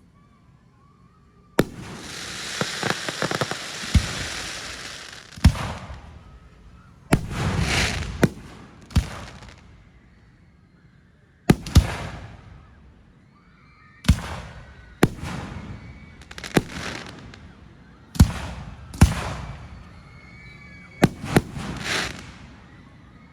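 Aerial fireworks going off: a string of sharp booms, one to two seconds apart, some in quick pairs. The boom about two seconds in is followed by a few seconds of dense crackling.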